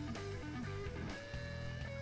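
Background music: a guitar plays a melody of short, stepping notes over a steady low accompaniment.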